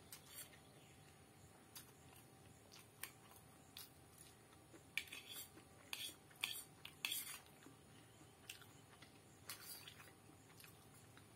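Metal fork clinking and scraping against a ceramic plate as noodles are gathered and twirled, in short scattered strokes, most of them bunched in the middle of the stretch.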